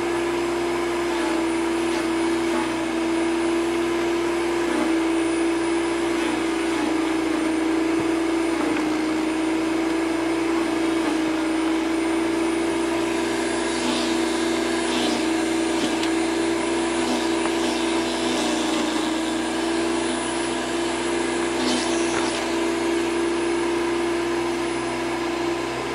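PowerSmart PS10 electric chipper shredder running with a steady motor whine while a hardwood branch is fed into it. A few faint crackles come through a little past halfway.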